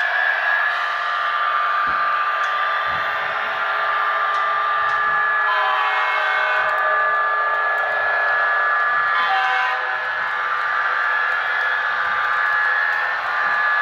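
HO-scale model train, a Kato F40PH locomotive pulling passenger coaches, running along the track: the small electric motor gives a steady high whine over the rolling hiss of the wheels on the rails.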